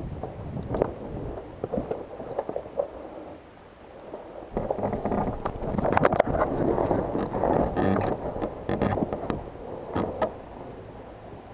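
Rustling and rumbling movement noise on a body-worn camera microphone, with scattered sharp clicks and knocks. It grows louder about halfway through, then eases off near the end.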